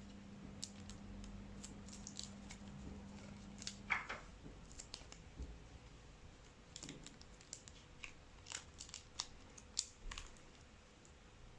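Trading cards and plastic card sleeves being handled, with faint crinkling and rustling and scattered small clicks. The loudest click comes about four seconds in, where a faint low hum stops.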